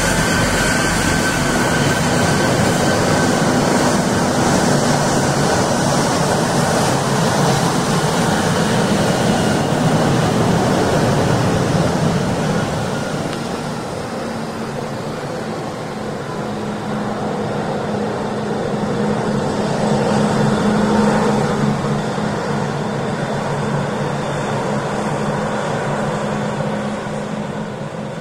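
Airbus A340-300's four CFM56 jet engines at taxi power as the airliner taxis past: steady jet noise with a high whine near the start, easing as it moves away, swelling again later, and fading near the end.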